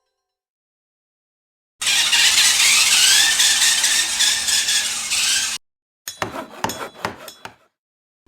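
A noisy, wavering squeal lasting about four seconds, then after a short gap a quick run of clinks and rattles.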